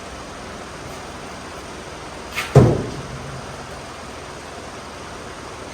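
A machined steel Skanf throwing knife striking and sticking in a target with one sharp thunk about two and a half seconds in, just after a faint click, over a steady hiss.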